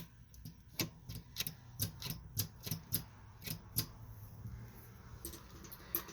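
Sharp metallic clicking from a Honda Z50's gearbox as it is turned by hand and shifted back down through the gears, about two to three clicks a second, then lighter scattered clicks. The owner suspects something in the shift mechanism is out of whack, as neutral does not sit where it should.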